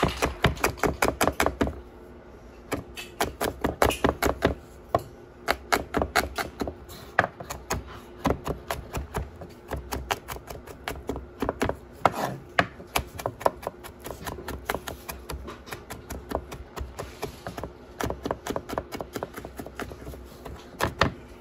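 Chef's knife mincing garlic cloves on a wooden cutting board: quick runs of sharp taps of the blade on the board, about six a second, broken by short pauses.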